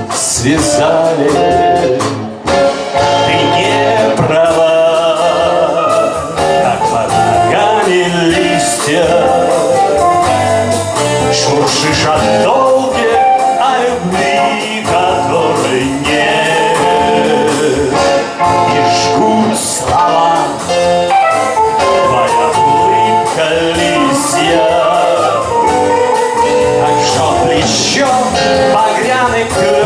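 Live blues band playing with guitars, bass guitar and drum kit; after the last sung word about a second in, the band plays on in an instrumental passage with a melodic lead line over the rhythm.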